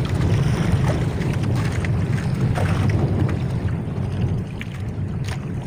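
Small outrigger fishing boat's engine running steadily under way, with water rushing along the hull and wind on the microphone.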